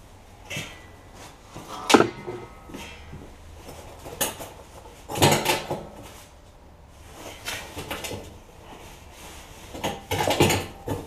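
Firebricks being set into the bottom of a steel oil barrel: irregular knocks, scrapes and clanks of brick on brick and against the barrel's metal wall, the sharpest knock about two seconds in.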